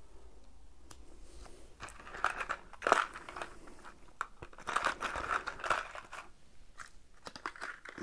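Small cardboard product box being handled and packed: irregular rustling, scraping and light clicks, busiest about three seconds in and again between about five and six seconds.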